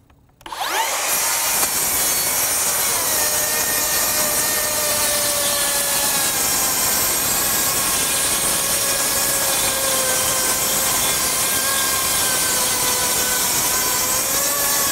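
Makita 40V XGT brushless rear-handle circular saw spinning up about half a second in, then ripping lengthwise at full depth through a stack of five sheets of half-inch OSB. The motor holds a steady pitch under load, with the blade's cutting noise over it. The pitch sags slightly about three seconds in as the blade takes the full depth.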